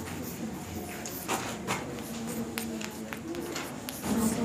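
Chalk tapping and scratching on a blackboard as words are written: a series of short, irregular clicks and strokes over a faint steady hum.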